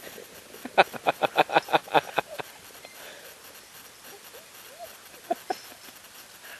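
Excited Eurohound sled dog barking in a fast string of about ten short yips within two seconds, followed a few seconds later by a couple of fainter short yelps.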